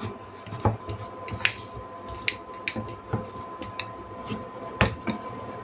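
Kitchen clatter: dishes and utensils clinking and knocking together, several sharp hits with the loudest about a second and a half in and near the end, over a faint steady hum.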